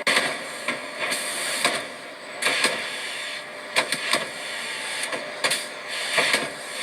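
Aircraft assembly-line factory noise: a steady hiss with about ten sharp knocks and clicks from tools and machinery at irregular intervals.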